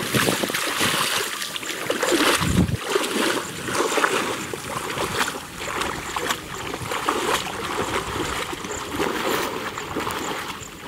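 People wading through shallow muddy flood water, with irregular splashing and sloshing as their legs push through it.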